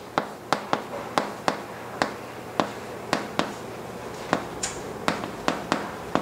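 Stick of chalk writing on a chalkboard: an irregular run of sharp taps and clicks, two or three a second, as the chalk strikes and lifts off the board.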